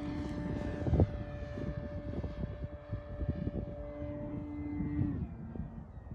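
Electric motor and propeller of a Carbon-Z Cessna 150 RC model plane in flight: a steady pitched drone that slowly falls in pitch and fades away as the plane passes and recedes. Wind buffets the microphone throughout, with a sharp knock about a second in.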